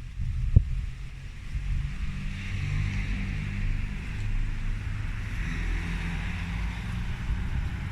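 Homemade tractor's Volkswagen 1.9 diesel engine running steadily, with one sharp knock about half a second in.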